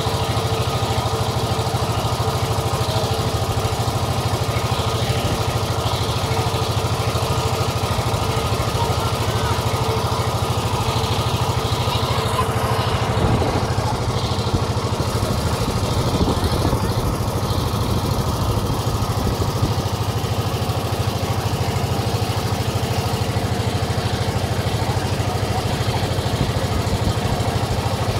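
A river boat's engine running steadily, heard on board, with an even mechanical hum. Its note changes slightly about halfway through.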